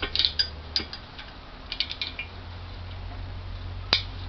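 Small clicks and taps of metal and plastic parts being handled while plastic bushings are worked into a Bobcat 843 Bob-Tach's pin hole, with a sharper click near the end. A low steady hum runs underneath.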